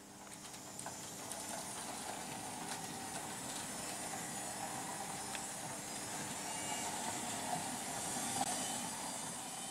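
Märklin H0 model train running on metal M-track: a steady rattling run with scattered clicks of wheels over the rail joints, getting a little louder toward the end.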